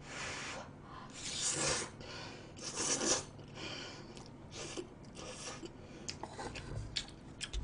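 A person slurping thick stir-fried instant noodles, with a few short, airy slurps about a second apart and soft chewing between them.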